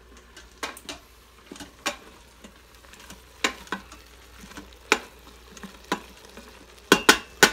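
Wooden spoon stirring sliced carrots and mushrooms in the stainless steel inner pot of an Instant Pot on sauté: scrapes and knocks against the pot over a faint sizzle of frying vegetables. The loudest knocks come near the end.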